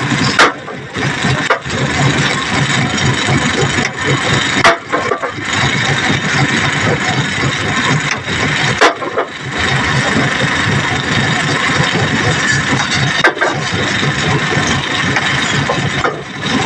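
Excavator engine running steadily, with a sharp knock or bang roughly every four seconds.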